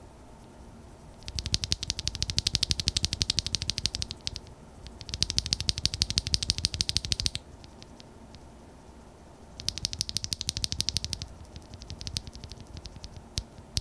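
Clackbits full-POM linear keyboard switches, with a 13.9 mm long-pole POM stem, clacking in three fast runs of rapid keystrokes, then scattered presses near the end. This is a comparison of a stock, lightly factory-lubed switch and one with a lubed stem.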